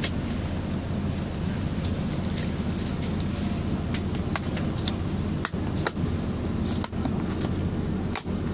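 Steady low hum of a car cabin with the engine running, with scattered light clicks and crackles of clear plastic food containers and lids being handled.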